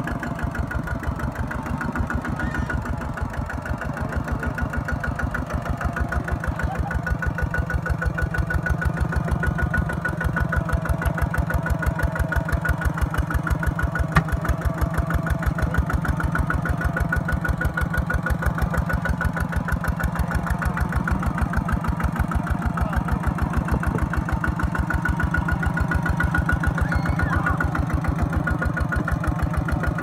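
Kubota RT120 Di walking tractor's single-cylinder diesel engine chugging steadily under load as it drives the tractor out of deep mud, with one sharp knock about halfway through.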